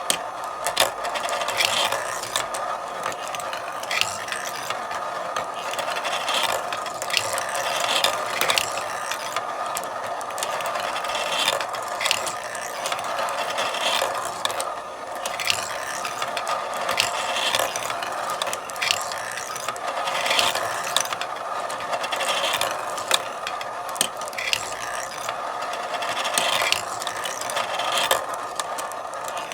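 Marble run in continuous operation: marbles rolling and clattering along the tracks, a steady rattle with frequent sharp clicks.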